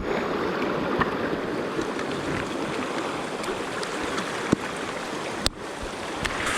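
Steady rush of flowing river water, with a couple of sharp knocks about four and a half and five and a half seconds in.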